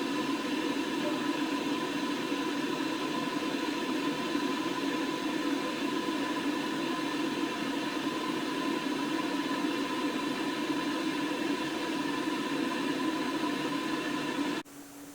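Air fryer running, its fan giving a steady whir with a faint hum, then cutting off abruptly near the end.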